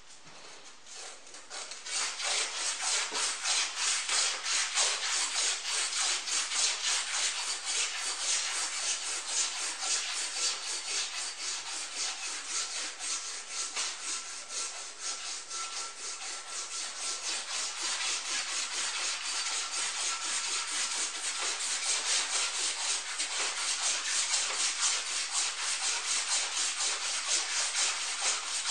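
Hand rubbing on a small metal sculpture figure to polish and re-shine it: quick, even back-and-forth strokes with a rasping hiss, starting about two seconds in.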